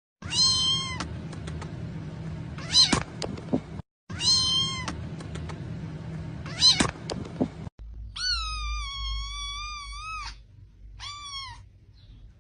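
Kitten meowing in high, thin calls: a short meow and a brief second call, the same pair heard twice. Then a drawn-out meow of about two seconds and a short one near the end.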